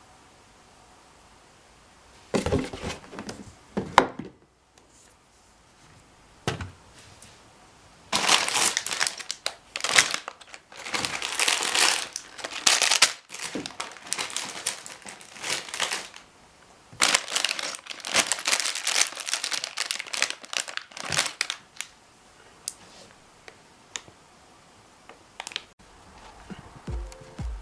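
Plastic parts bags of a Lego set being handled and torn open: irregular bursts of crinkling and tearing with a few sharp clicks, busiest in two long stretches in the middle and quieter near the end.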